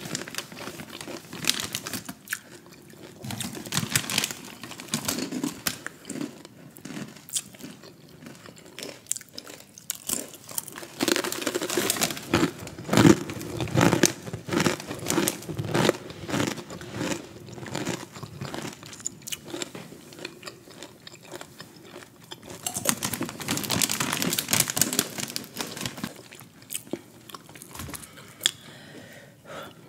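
Crisp rolled tortilla chips (Takis) being bitten and chewed with an irregular crackling crunch, coming in bursts through the stretch. Now and then the chip bag rustles.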